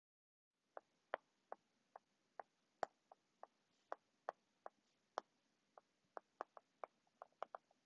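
Stylus clicking against a tablet screen while handwriting: a string of faint, sharp, irregular clicks, about two or three a second, starting just under a second in.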